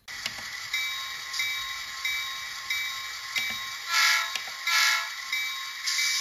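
Diesel locomotive sound: a steady running hiss with a light regular ticking, about three ticks every two seconds, and two short blasts of a multi-tone horn about four and five seconds in.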